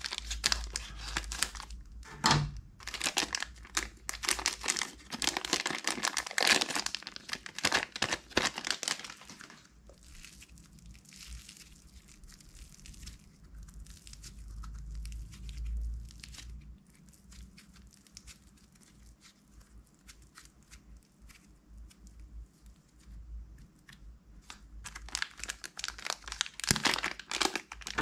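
Plastic packet crinkling and being cut open with scissors. Then a much quieter stretch of soft red clay being squeezed and kneaded by hand. Near the end, more loud plastic crinkling as another wrapped packet is handled.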